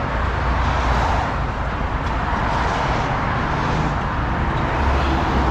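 Volvo heavy recovery truck's engine running steadily under load, driving the hydraulic underlift as it raises the front of a 32-tonne suction excavator lorry, with a low rumble throughout.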